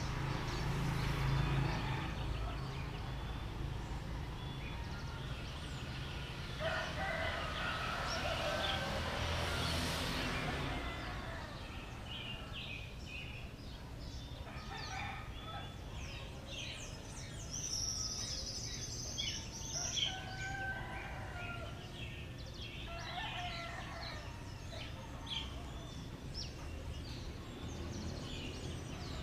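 A rooster crows about seven seconds in, while smaller birds keep up short chirps and calls. A steady low rumble sits underneath.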